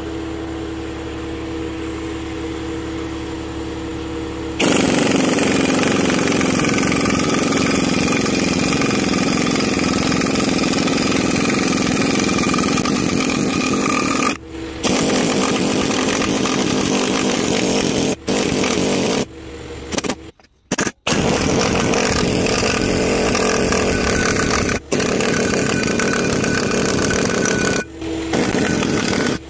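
A steady hum, then from about four and a half seconds in a pneumatic impact wrench hammering in long runs with a few short pauses. It is driving the centre bolt of a homemade puller to force a seized rear hub and brake drum off its axle.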